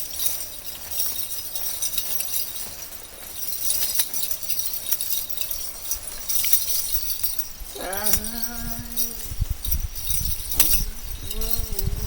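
Light metallic jingling and clinking throughout, with a person's voice heard briefly about eight seconds in and again near the end.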